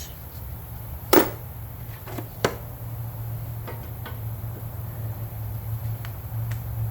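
A few sharp metallic knocks of hand tools on the mower's underside, the loudest about a second in and another about a second later, over a steady low hum.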